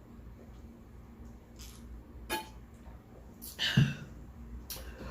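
A short throaty burp about four seconds in, over faint room tone with a few light clicks.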